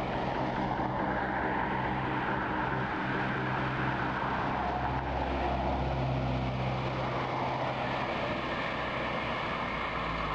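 City bus engine running with a steady low drone. A faint higher whine joins about eight seconds in.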